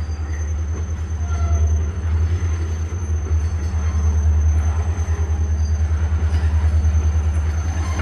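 Slow-moving freight train with a caboose backing past: a steady low rumble from the train, with faint wheel squeals.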